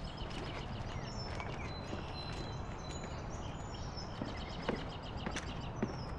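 Outdoor ambience of small birds chirping over a steady low rumble, with a few short knocks in the second half.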